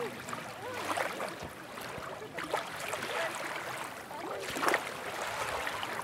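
Beach ambience: surf and water splashing at the shoreline under the distant chatter and shouts of a beach crowd, with a louder splash toward the end.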